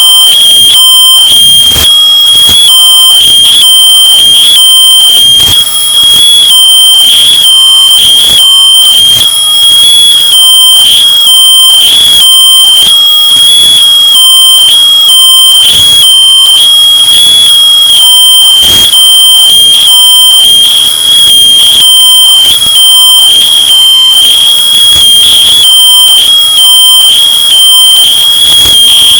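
Smoke alarm's shrill tone, bass boosted and clipped into harsh, choppy distortion at near full loudness. It sounds without a break throughout.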